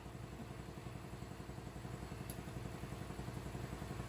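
A motor running steadily with a fast, even low pulsing, slowly getting louder.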